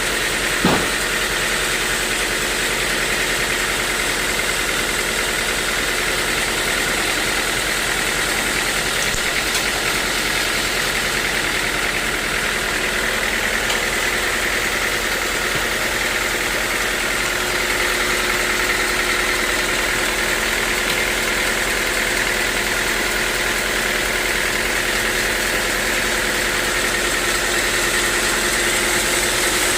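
Sawmill machinery running steadily, an unbroken mechanical drone with a steady high whine, as a teak log is worked. There is a short knock just under a second in.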